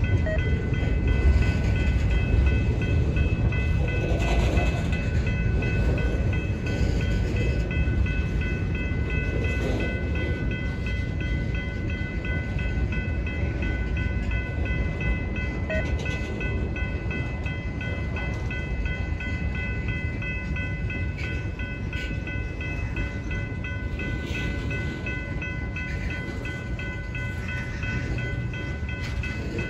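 Freight train cars (covered hoppers and tank cars) rolling past, a steady low rumble of wheels on rail with a continuous high-pitched ringing tone over it, easing slightly toward the end.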